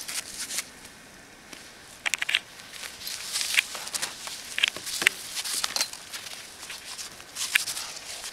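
Irregular crunches and crackles in snow, a few quick ones together about two seconds in and more spread out after, over a faint steady hiss of wind.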